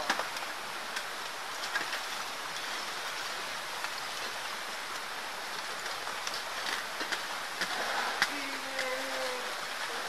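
Steady rushing of a waterfall: an even, unbroken hiss of falling water, with a few light clicks.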